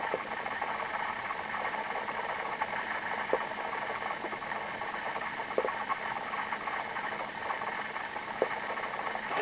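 A small pet squeaking in three short chirps over a steady whirring hum.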